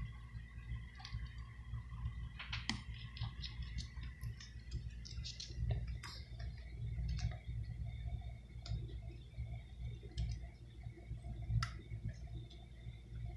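Scattered small clicks and taps of small hand tools and tiny screws on smartphone parts, unevenly spaced, over a low steady hum.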